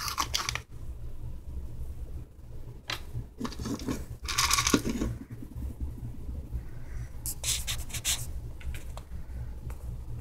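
A few short bursts of crinkling and crunching, the loudest about halfway through: a cat-treat bag being handled and a kitten chewing dry treats. A steady low hum runs underneath.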